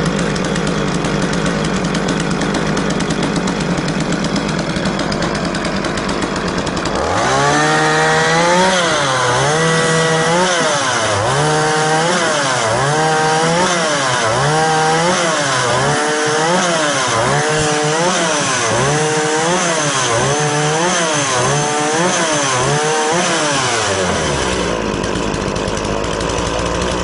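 Two-stroke chainsaw mounted on a homemade firewood saw rig, idling steadily at first. About a quarter of the way in it is revved up and down through its welding-wire throttle about a dozen times, roughly once a second, in a test cut of firewood, then drops back to idle near the end.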